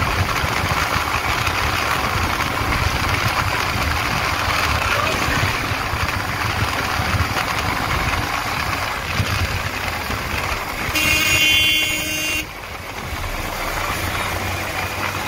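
Motorcycle engine running under way, with steady road and wind noise from riding at speed. Near the end a vehicle horn sounds once for about a second and a half.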